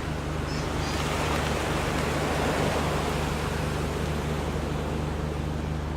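Steady rushing of wind on the microphone, swelling slightly midway, over a low steady hum.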